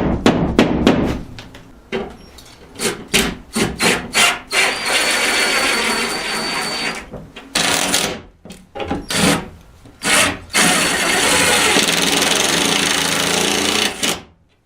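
Several sharp hammer taps knocking plastic wall anchors into plasterboard, then a power drill running in two long steady stretches, the first with a thin high whine.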